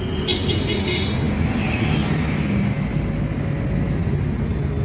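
Honda EP1000 portable generator's small four-stroke engine running steadily at an even pitch, with a few light clicks about half a second in.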